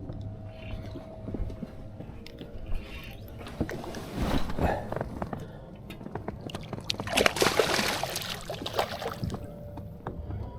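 Water sloshing and splashing at a fishing boat, in irregular spells with a few sharp knocks, the loudest spell about seven seconds in.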